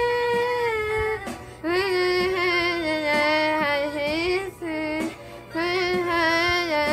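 A woman singing solo with no accompaniment: a long held high note that drops away about a second in, then, after a short pause, wavering sung phrases with brief breaks between them.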